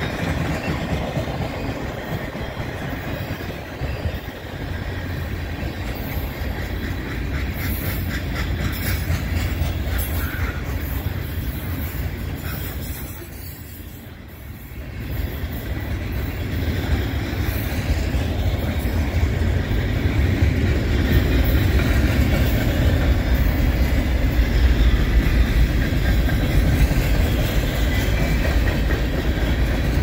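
Freight cars of a long train rolling past: a steady rumble of steel wheels on the rail with clickety-clack over the joints. The noise dips for a couple of seconds about halfway through, then comes back louder.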